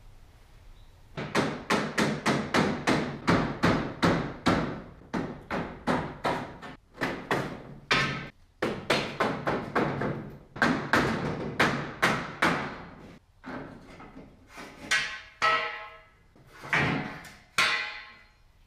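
Hammer blows on metal framing, a quick run of about four strikes a second from just over a second in, then uneven groups of strikes. Some of the later blows ring.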